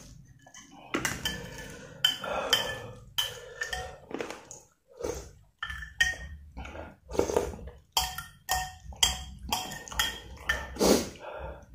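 Metal spoon clinking and scraping against a white soup bowl of noodle soup: many sharp clinks, each with a brief ring, with mouth sounds of eating between them.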